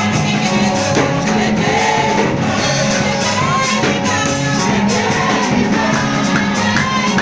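Gospel song: sung voices over a full band with a steady beat.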